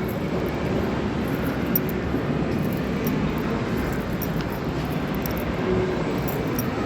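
Steady background din of an indoor game arcade, a continuous rumbling wash of noise.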